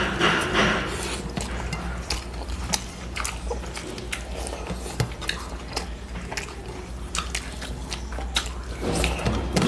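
Close-up eating sounds of two people eating rice and curry by hand from steel plates: chewing with many small sharp clicks, and fingers mixing rice on the plates. A steady low hum runs underneath.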